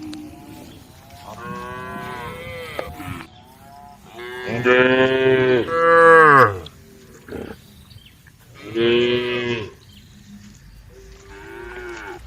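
Cows mooing: several drawn-out moos, the loudest a long call in the middle, another about nine seconds in, and fainter ones early and near the end.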